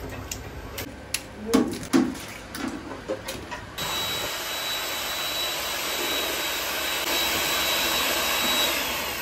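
Eggs cracked one after another against the rim of a square metal tin, a series of sharp taps. About four seconds in, an electric stick mixer starts and whirs steadily in the beaten egg with a high whine, beating the mixture fine and smooth; the whine drops in pitch near the end.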